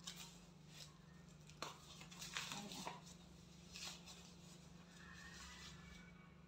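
Faint, scattered rustling and crinkling of foam packaging wrap being pulled off a laser handpiece and its hose, over a steady low hum.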